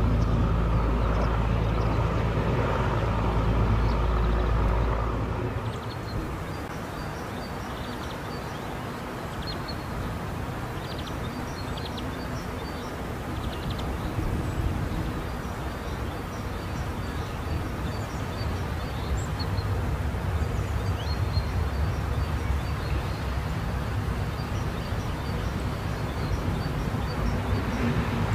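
Two-car Uerdingen railbus with underfloor diesel engines, running steadily as it passes. The sound breaks off suddenly after about five seconds. Then comes a quieter steady hum with birds chirping now and then, and the railbus's engine slowly grows louder as it approaches.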